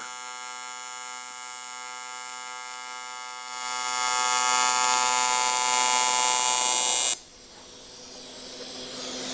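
Longevity Tigweld 200EX AC TIG arc welding aluminum with the AC frequency set to 120 Hz: a steady high buzz that grows louder and hissier about three and a half seconds in. About seven seconds in the arc cuts off suddenly, leaving a softer hiss that slowly rises.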